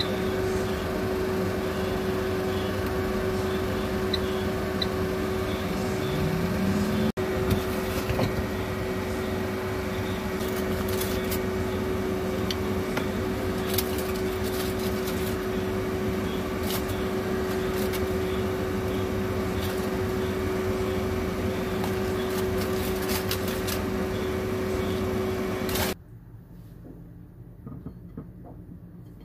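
Steady electric fan hum with one constant tone from a kitchen appliance, with metal tongs clicking and scraping against aluminium foil in an air-fryer basket. Near the end the hum cuts off and gives way to much quieter handling sounds.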